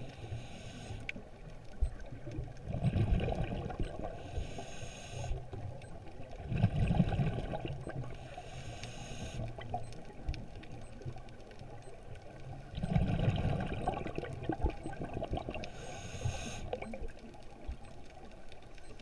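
Scuba regulator breathing underwater: a hiss with each inhalation, alternating with the low bubbling rumble of exhaled air, several breaths about every four seconds.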